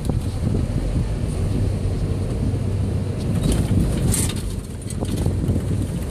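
Off-road vehicle engine running at low speed, heard from inside the open cab, with body and load rattling and knocking over a rough dirt trail.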